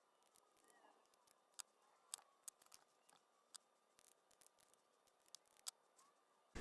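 A handful of faint, sharp clicks, spaced irregularly, from a crimping tool and small DuPont connector parts being handled while crimp terminals are fitted onto wires.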